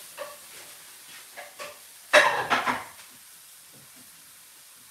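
Diced onion, carrot and celery browning in a pan, with faint sizzling and the small knocks of stirring. A louder, short clatter of cookware comes about two seconds in.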